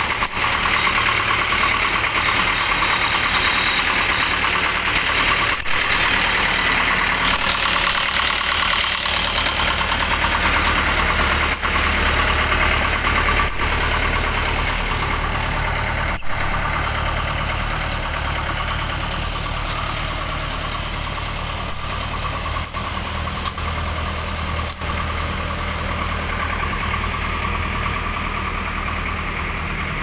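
Massey Ferguson 2168 combine harvester running steadily, its four-cylinder water-cooled diesel engine with a dense mechanical clatter over it, easing off a little in the second half.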